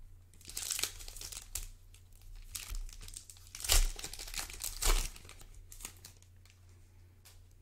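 Foil trading card pack wrapper being torn open and crinkled by hand, in several crackly bursts, the loudest about four and five seconds in with dull handling thumps, then quieter rustling near the end.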